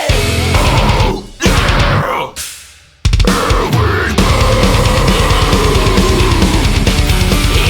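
Heavy metal music with drums and distorted guitar. It breaks off briefly about a second and a half in, fades out just before three seconds, then comes back in full.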